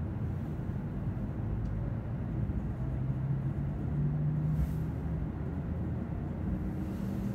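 Cabin sound of a JR West W7 series Shinkansen pulling out of the station: a steady low rumble of the running gear, with a low hum that rises in pitch about three to four seconds in as the train gathers speed.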